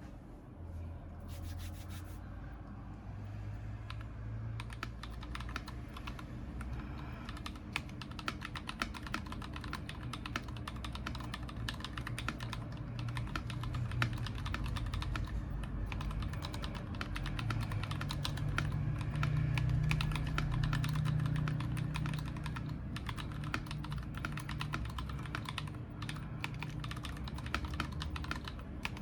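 Stock, unmodified Akko ACR-series mechanical keyboard being typed on steadily: a continuous, irregular run of key clicks over a low background hum. The uploader finds it muted out of the box, with stabilizers that need work.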